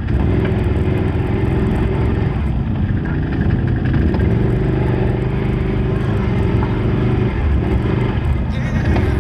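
ATV engines running steadily with small changes in speed.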